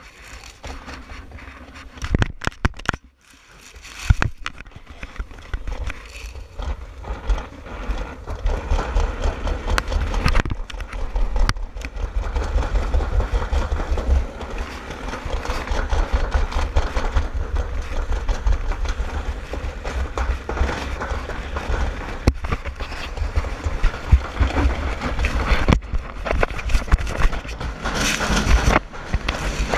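Summer toboggan sled running down a stainless-steel trough: a few knocks as it sets off, then a steady rumbling rattle of the sled in the track mixed with wind buffeting the microphone, building as it gathers speed. Near the end the sound turns brighter and hollow as the sled passes through a corrugated-metal tunnel.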